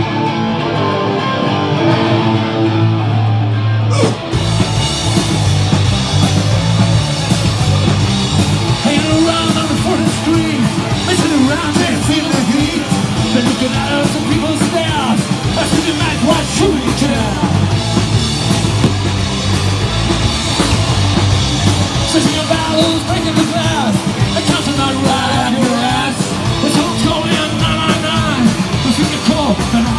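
Punk rock band playing live with electric guitars, bass and drums: a low riff without drums for about four seconds, then the drums and full band come in, with lead vocals from about eight seconds on.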